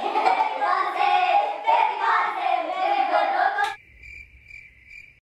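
Several voices at once, singing or chattering, with no clear words; they cut off suddenly a little over halfway through. Then a faint high tone pulses about three times a second over a low hum.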